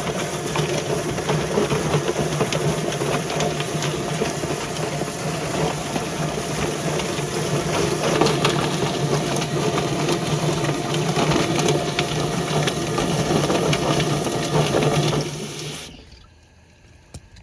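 Electric chicken plucker running: its motor hums steadily under the noise of water spraying while the scalded bird is tumbled to strip its feathers. The motor is switched off about sixteen seconds in and the sound winds down over about a second.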